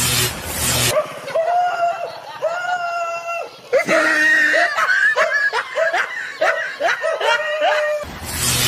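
Dubbed comedy laughter sound effect: a high-pitched voice cackling in repeated 'ha' pulses about twice a second, rising to a denser, louder stretch of laughing around the middle. A short rushing noise sits at the very start and another near the end.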